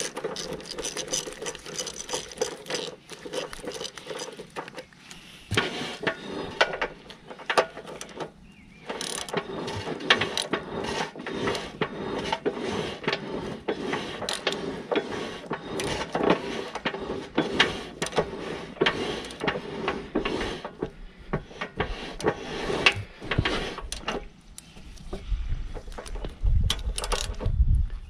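Ratchet wrench clicking in quick runs as a nut is run a long way down the rear brake's long adjusting bolt, with short pauses about eight seconds in and near the end.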